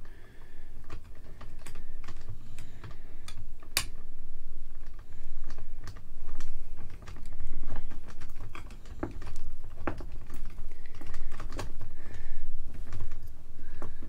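A white PVC tee being twisted by hand onto the threaded metal stud of a mini light stand: irregular clicks and scraping of plastic on metal, over a low rumble that rises and falls as it turns.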